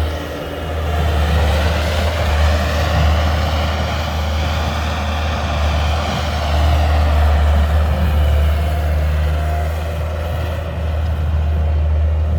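Gehl 5635SX skid steer running steadily under load while moving snow. Over it is a whine that rises and then falls in pitch.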